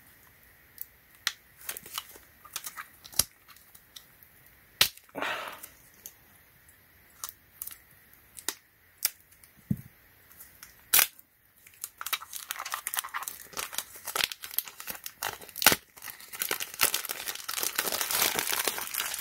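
Clear plastic wrap being pulled and peeled off a new clamp meter: scattered sharp crackles at first, then a dense stretch of crinkling over the last several seconds.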